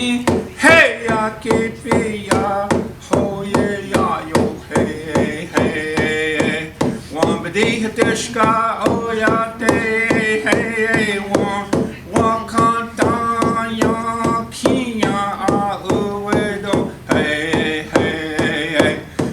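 A man singing a traditional Dakota song in vocables, with a steady, even beat struck along under the voice.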